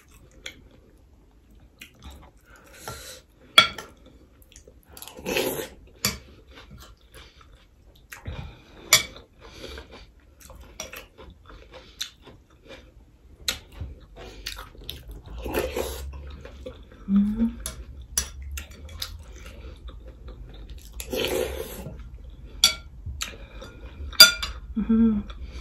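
A metal fork and spoon clinking and scraping against ceramic plates while a person eats, with chewing sounds close to the microphone. Scattered short clicks and a few louder scrapes.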